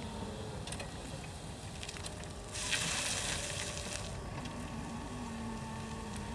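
Steinbock Boss LE20 electric forklift driving and turning, its electric drive giving a steady whine, with a burst of hiss lasting about a second and a half around the middle.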